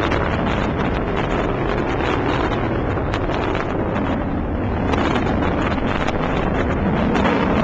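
Delta II rocket climbing on its main engine and strap-on solid rocket boosters: a loud, steady roar with crackling throughout.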